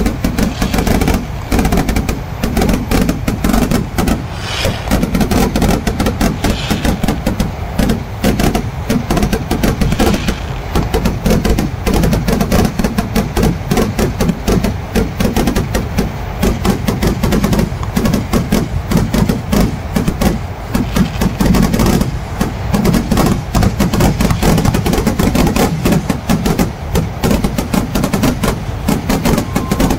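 Kerala temple fireworks (vedikettu) in a continuous rapid barrage of firecracker bangs, coming too fast to count and without a break.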